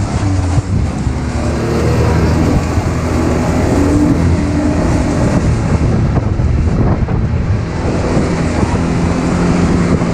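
ATV engine running under way, loud and steady, its pitch shifting a little with the throttle.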